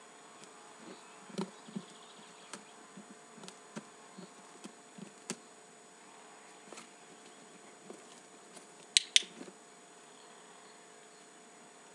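Puppy moving about in a cardboard box, making scattered soft knocks and scrapes on the cardboard, over a faint steady hum. About nine seconds in a training clicker gives two sharp clicks in quick succession, the marker for the behaviour just offered, ahead of a treat.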